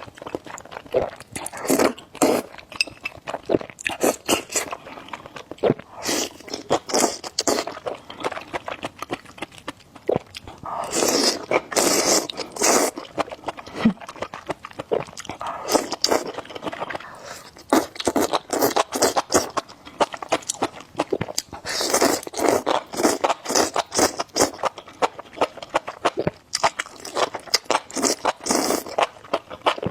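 Close-miked eating: a dense run of chewing, crunching and wet mouth clicks, with louder stretches of bites about a third and three quarters of the way through.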